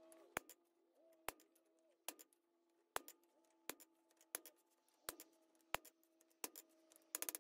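Faint sharp clicks about every three-quarters of a second over a faint low steady hum, then a quick run of clicks just before the end.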